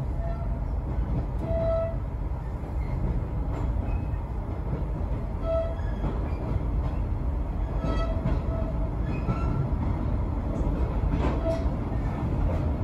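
A train running along the track, heard from on board: a steady low rumble with short, high squeaks now and then.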